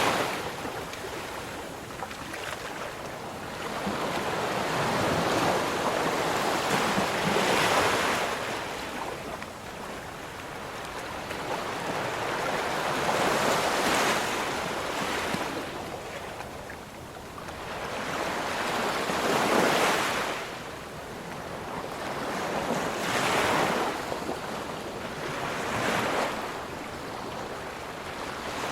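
Ocean surf, the waves breaking in repeated swells that rise and fall away every few seconds, about five big surges in all.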